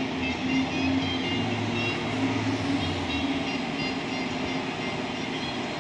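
A motor vehicle's engine running steadily under a continuous low hum, with scattered short higher tones over it.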